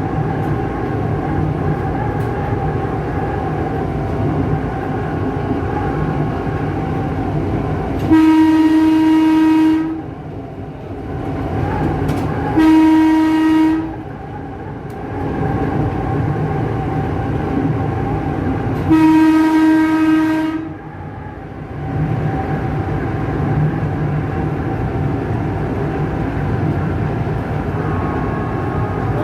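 Electric horn of a Tokyu 8500-series electric commuter train sounding three times: a blast of about two seconds starting some eight seconds in, a short one-second blast, then one of nearly two seconds. Between the blasts comes the steady running noise of the train, heard from the cab.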